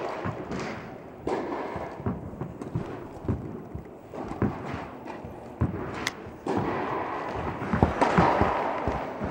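Tennis balls being struck and bouncing, a string of sharp, irregular knocks that echo around an indoor tennis hall.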